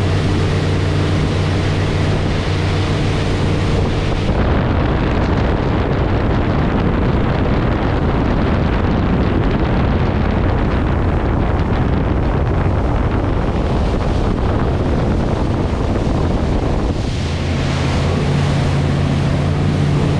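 Motorboat engine running steadily while towing, with wind buffeting the microphone and water rushing. From about four seconds in, the wind noise swamps the engine hum, which comes through again near the end.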